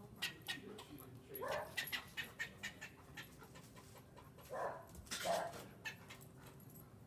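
Standard poodle whining in three short, rising whimpers, the last the loudest, as it jumps at the wall after a squirrel. A run of sharp clicks goes on throughout: the squirrel chattering.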